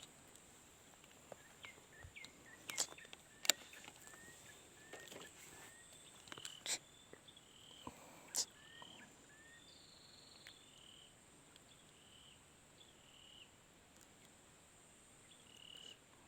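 Faint outdoor ambience: a steady high insect drone with a bird calling in short repeated chirps. A few sharp clicks sound in the first half.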